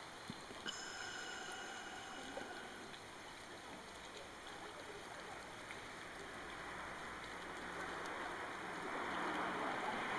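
Shallow stream running over a low concrete weir: a steady rush of water that grows louder over the last few seconds.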